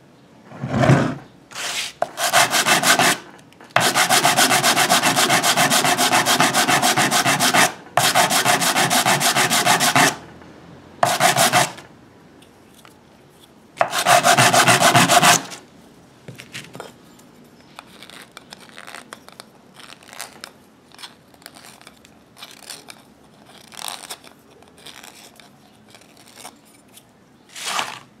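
The cut end of a PVC plastic tube rubbed hard back and forth on a sheet of sandpaper to deburr it, in several bursts of fast strokes, the longest running about six seconds with one short break, then lighter, scattered scrapes later on. A short bump about a second in.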